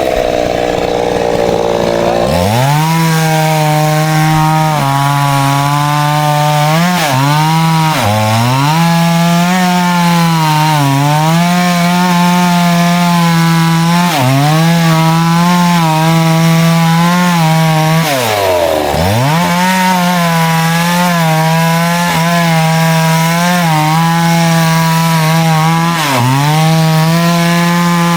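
Two-stroke chainsaw cutting through wood at high revs, its engine pitch sagging and recovering again and again as the chain takes the load. It revs up from a low speed about two seconds in and drops briefly almost to idle about two-thirds of the way through before revving up again.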